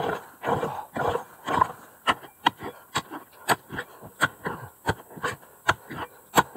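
Prospector's hand pick striking into rocky, reefy gravel again and again, about two sharp chops a second, with dirt and stones scraping between strokes as a detector target is dug out.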